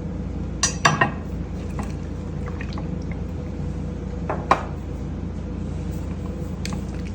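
Kitchen handling sounds: a few sharp clinks and knocks about a second in and again midway, with some faint wet liquid sounds, over a steady low hum.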